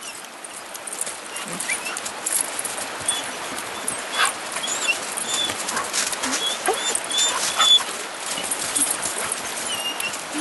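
Coonhounds at the foot of a tree with a treed raccoon, whining in short high squeaks while they scuffle and scratch in the brush and snow.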